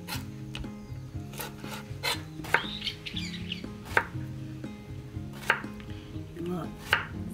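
Chef's knife cutting on a wooden cutting board, first through squid, then slicing a Korean zucchini into rounds: irregular sharp knocks of the blade hitting the board, about one a second.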